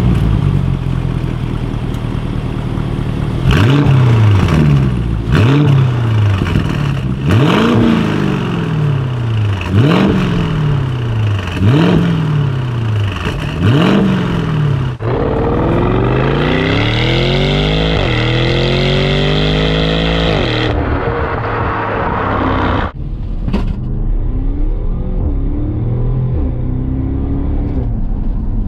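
Porsche Cayenne Turbo's 4.0 twin-turbo engine through a custom exhaust in its quiet mode, valves closed. It is blipped at standstill in a string of short revs about every two seconds, each rising and falling. About halfway through it accelerates hard, the pitch climbing and dropping back at two upshifts, then settles to a lower, steady run.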